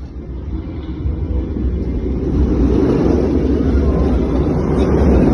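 A vehicle driving: a steady low rumble of engine and road noise that grows louder over the first two or three seconds, then holds.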